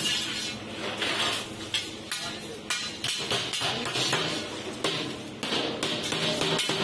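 Irregular metal taps and clinks on a sheet stainless-steel flour drum as its lid and rim are worked by hand with a small tool.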